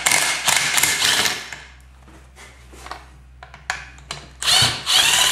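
Cordless impact driver hammering as it undoes the base valve nut in the bottom of a KTM fork leg. It runs in two bursts: one of about two seconds at the start and a shorter one near the end, with a few light ticks between.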